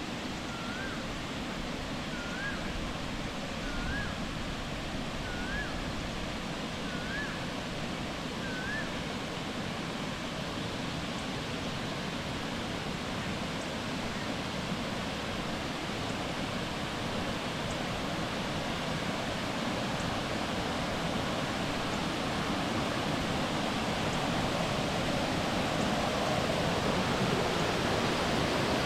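Steady rush of flowing and falling water in a jungle, growing a little louder toward the end. Over the first nine seconds a bird repeats a short rising call about every second and a half, six times.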